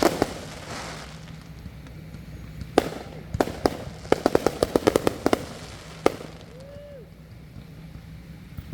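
Fireworks going off as sharp bangs: two at the start, three single reports a little apart, then a quick run of about ten cracks in just over a second, and one last bang.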